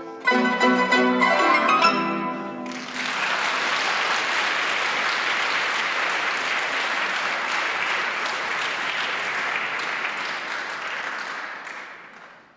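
A qanun ensemble plays its closing plucked chords, which ring out and stop about two and a half seconds in. Audience applause follows and fades away near the end.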